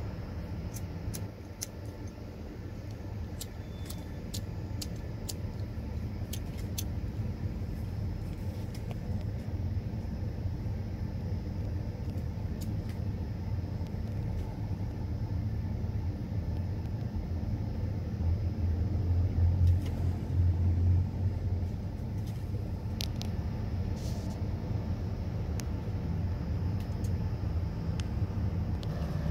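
Steady low outdoor rumble, swelling louder for a few seconds about two-thirds of the way through, with a few faint scattered clicks.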